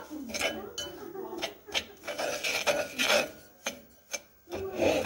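A metal fork scraping and stirring dry granulated sugar around a non-stick pan: a gritty rasping rub in irregular strokes, the sugar not yet melted. The strokes pause briefly about four seconds in.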